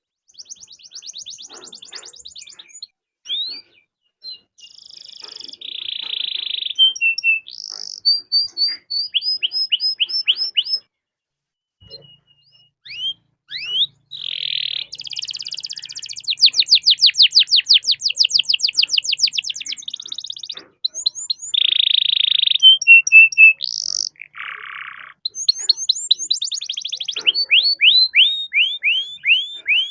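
Domestic canary singing a long, varied song of fast rolling trills, buzzy churrs and runs of quick sweeping whistled notes. It breaks off briefly twice, and the longest, loudest roll comes about 15 to 20 seconds in.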